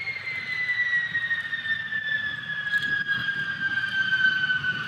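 Jet aircraft engine whine over a low rumble, the high whine slowly falling in pitch.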